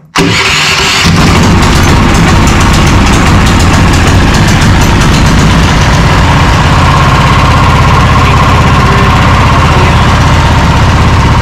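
DuroMax XP18HPE 440cc single-cylinder engine electric-started with the key: the starter cranks for about a second, then the engine catches and runs loud and steady.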